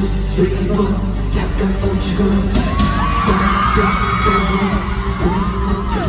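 Live pop music played loud through a concert PA, with singing; high gliding, arching vocal lines come in about two and a half seconds in.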